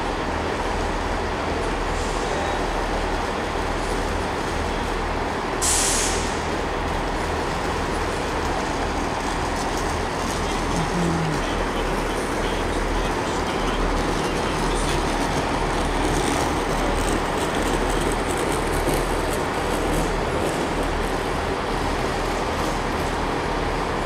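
Northern diesel multiple unit idling steadily in the station, waiting to depart, with a constant low engine hum. A short hiss comes about six seconds in.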